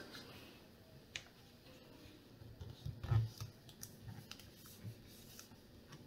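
A black plastic film sticker being laid back over a laptop's RAM and smoothed down by hand: faint crinkles and small clicks, with one louder soft knock about three seconds in.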